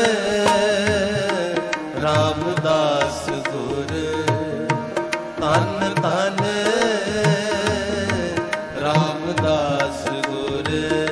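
Sikh shabad kirtan: a singer's voice gliding through ornamented devotional phrases over tabla and a steady held accompaniment.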